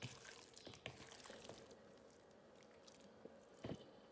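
Faint wet squishing of raw chicken leg quarters being rubbed by hand in an oily spice marinade in a bowl, a few soft squelches with the loudest near the end.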